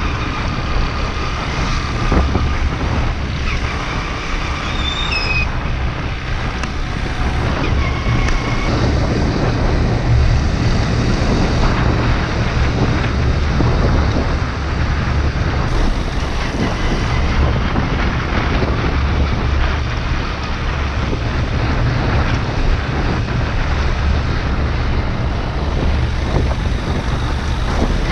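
Motorbike on the move: a steady low engine drone mixed with heavy wind rumble on the microphone.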